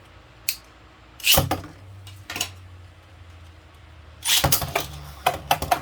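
Beyblade spinning tops launched from their launchers into a plastic stadium. A few plastic clicks come first, then a sharp launch about a second and a half in, followed by a steady low whirr. From about four seconds in there is rapid clattering as the tops collide.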